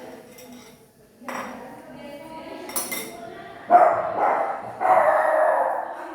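Cutlery and dishes clinking and scraping during dessert preparation. Two louder sudden sounds come about four and five seconds in.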